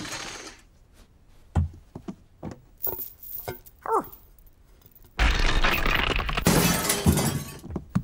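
Cartoon sound effects: a few sharp knocks and short falling creak-like tones, then about five seconds in a loud crash of breaking glass that lasts over two seconds, a glass lampshade smashing to the floor.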